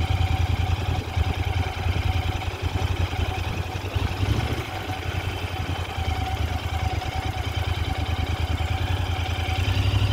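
Royal Enfield Interceptor 650's 648 cc parallel-twin engine running at low revs as the motorcycle rolls slowly, with a steady, even exhaust pulse. The sound eases slightly a few seconds in and picks up again near the end.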